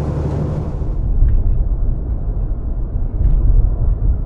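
Semi truck's diesel engine and road noise while driving: a steady low rumble. A higher hiss drops away about a second in.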